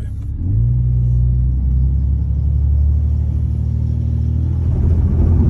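A 2001 Jeep Cherokee XJ's 4.0-litre inline-six pulls steadily under load on a loose gravel climb, getting louder near the end. The driver blames the four-wheel drive, which won't engage.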